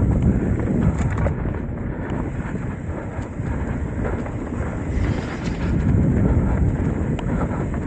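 Wind buffeting the microphone over the rumble of knobby tyres rolling on a dirt forest trail, with irregular rattling and knocking from a Trek Top Fuel 8 full-suspension mountain bike riding over roots and rocks. It grows a little louder about five seconds in.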